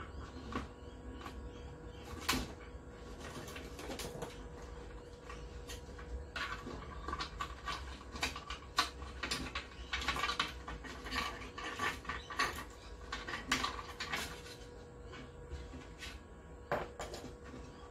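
Small clicks, taps and rattles of plastic TV housing parts and wire connectors being handled and pulled loose, irregular and busiest in the middle of the stretch, over a faint steady hum.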